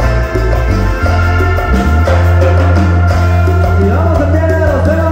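Latin dance-band music with a heavy, steady bass line under sustained instrument tones, and a bending melody line near the end.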